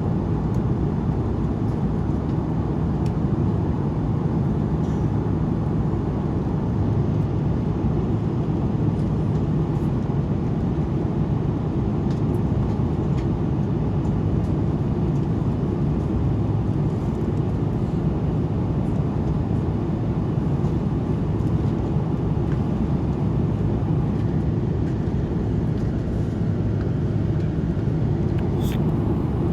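Steady cabin noise inside an Airbus A330-200 airliner: an even, low rumble of engines and airflow that holds at one level without change.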